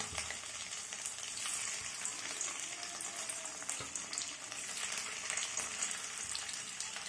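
Potatoes frying in hot refined vegetable oil in a kadai: a steady sizzle with scattered small crackles.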